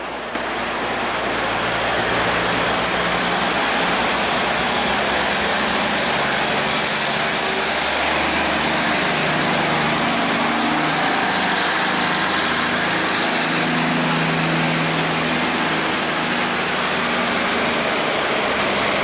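Tugboat's diesel engine running hard as it accelerates: a loud, steady drone with a high whine that rises slowly in pitch for most of the time and drops back near the end.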